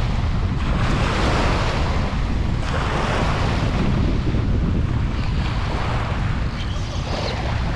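Small waves washing up onto a sand-and-pebble beach, the hiss of the wash swelling and fading several times, over a steady low rumble of wind on the microphone.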